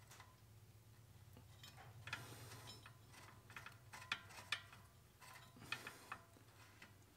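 Faint, irregular metallic clicks and ticks as a bolt is fitted loosely back into a pulley mount under a zero-turn mower, with a few sharper clicks in the second half over a steady low hum.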